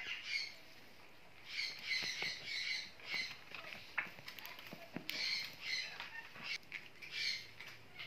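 Pet parrot squawking in harsh, raspy bursts: a long run of calls around two seconds in, another about five seconds in, and shorter squawks near the start and near the end, with a few sharp clicks between.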